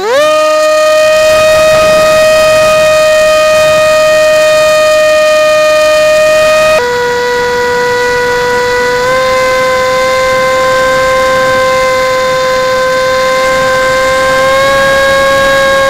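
Electric motor and propeller of a Zumba mini flying wing, a steady high whine heard through the onboard camera. The pitch rises as the throttle opens at the start, drops sharply about seven seconds in, then steps up slightly twice.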